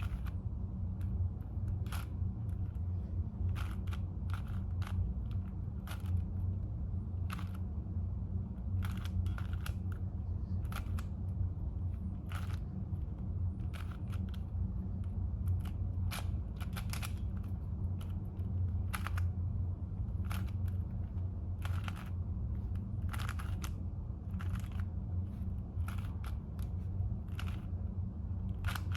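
Plastic layers of a 4x4 Rubik's cube being turned during a scramble: irregular clicks and clacks, about one or two a second, over a steady low hum.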